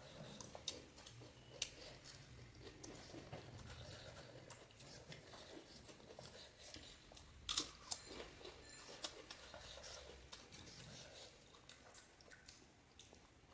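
Quiet crunching and chewing of panipuri, the crisp hollow puri shells cracking in the mouth, with scattered crackles and a louder crunch about halfway through.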